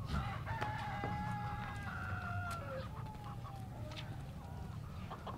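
A rooster crowing: one long call of about two and a half seconds that starts just after the beginning and drops in pitch at its end, followed by a shorter, fainter call.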